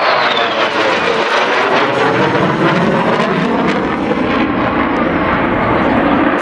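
Military aircraft passing low and loud, its engine whine falling steeply in pitch over the first second as it goes by, then a steady heavy engine noise.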